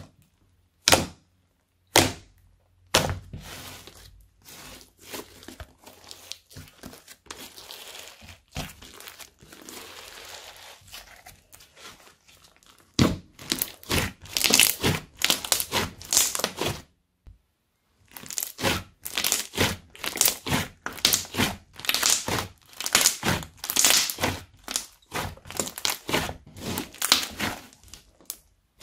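Thick pink slime being stretched, folded and squeezed by hand, giving sticky popping and crackling clicks. A few separate pops come first, then a softer stretch, then dense runs of loud pops from about halfway, broken by a brief pause.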